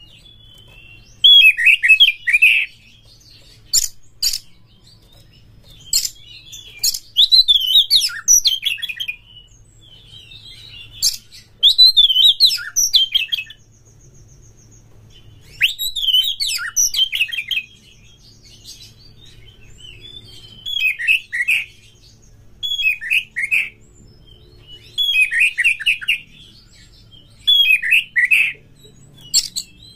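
Oriental magpie-robin (kacer) singing in short loud phrases of quick varied whistles and sharp clicks, about nine phrases separated by pauses of one to three seconds.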